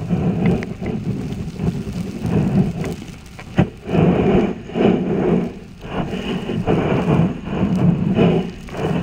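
Underwater rumble and rush of river water picked up by a submerged camera, swelling and easing about once a second as sea trout swim and beat their tails right against it. A sharp knock about three and a half seconds in.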